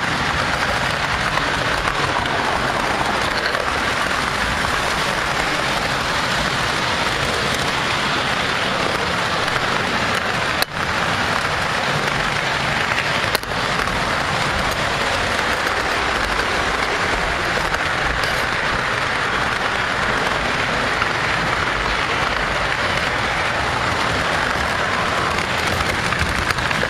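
O scale model train rolling along three-rail track, heard from on board: a steady, dense rolling noise of wheels on the rails, broken twice by brief dropouts about midway.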